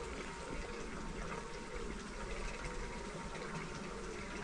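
Honeybees buzzing around their hives, a faint wavering hum over a steady hiss, with a thin steady high tone throughout.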